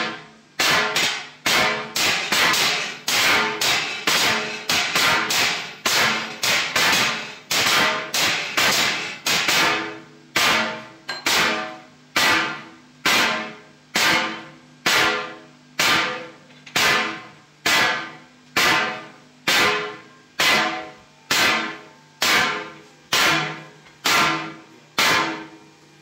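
Hand hammer repeatedly striking a dished steel plate, the cone end of a concrete mixer drum, being shaped by hand: a regular series of sharp metallic blows, each ringing briefly. The blows come a little faster in the first few seconds, then settle to about one a second.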